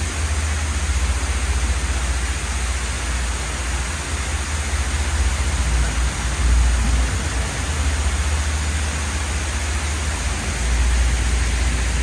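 Steady rushing of a waterfall pouring down a rock wall into seawater, under a strong low rumble.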